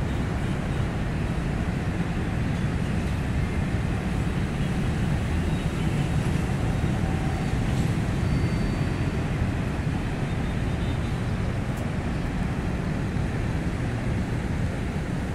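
Steady low outdoor rumble with a fainter hiss above it, even and unbroken.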